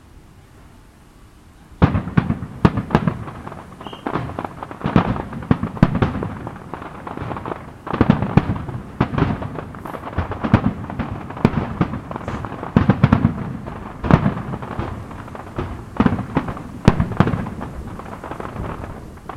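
Fireworks display: a dense barrage of shell bursts and crackling bangs that starts suddenly about two seconds in and goes on without a break.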